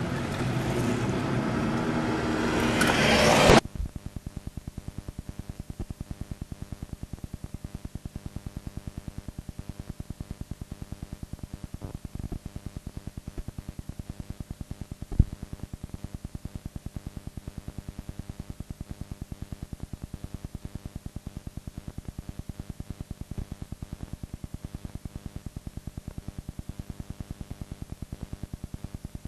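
A loud, noisy outdoor sound with some steady tones grows louder for about three and a half seconds, then cuts off abruptly as the recording ends. After that comes the steady, rapidly pulsing buzz of blank videotape playing back, with two sharp clicks near the middle.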